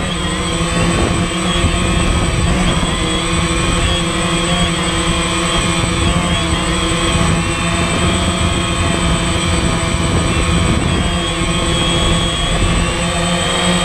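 DJI Phantom quadcopter's motors and propellers whining steadily right beside the camera it carries, several tones wavering up and down in pitch as it hovers and manoeuvres, over a low rumble.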